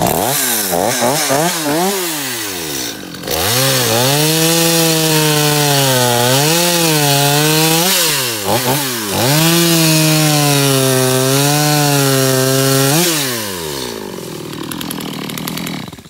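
Stihl MS250 two-stroke chainsaw blipped a few times, then held at full throttle cutting into a tree limb, the revs dipping briefly under load a few times and falling back to idle near the end. It runs cleanly, now sparking properly after its ignition coil-to-flywheel gap was reset.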